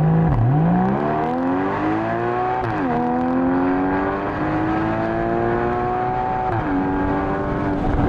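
Porsche Boxster GTS 981's 3.4-litre flat-six engine and exhaust under acceleration. The pitch climbs through the revs and drops at three upshifts, about half a second, three seconds and six and a half seconds in, before settling into a steadier pull near the end.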